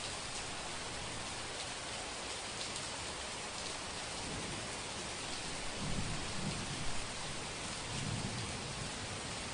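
Heavy rain falling in a steady hiss, with low rolls of thunder rumbling in about four seconds in and swelling twice more before fading near the end.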